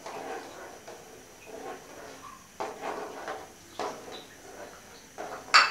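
Spoon stirring soup in an aluminium cooking pot, scraping and knocking against the pot a few times, with the loudest knock near the end.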